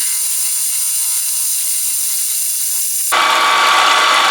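Milling machine running a fly cutter across a square steel block to face it, a steady high-pitched whine with many tones. About three seconds in it gets louder and fuller.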